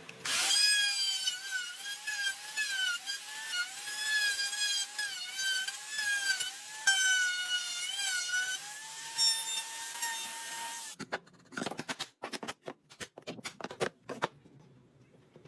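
A small electric power tool running with a high whine that wavers and dips in pitch as it is loaded, then stops about eleven seconds in. A series of sharp knocks and clicks follows.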